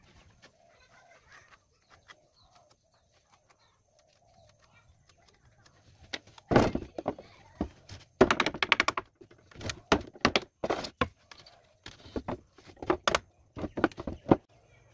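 Hammer knocking on the wooden window-sash frame: a series of sharp knocks starting about six seconds in, some in quick runs of several strikes, going on until just before the end.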